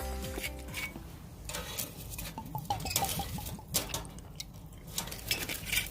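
Scattered light clinks and clicks of tableware being handled, with a few brief high chirps about halfway through.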